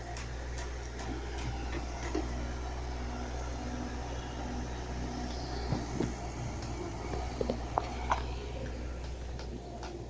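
Backhoe's diesel engine running steadily at a low, even hum, with a few short knocks and clanks a little past the middle.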